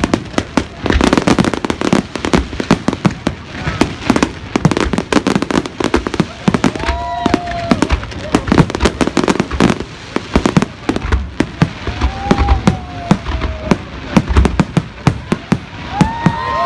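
Fireworks display: a dense, continuous barrage of bangs and crackling pops, several every second.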